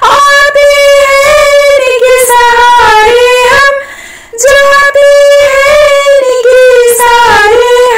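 A woman singing a Hindi devotional bhajan in long held phrases, pausing for breath about halfway through.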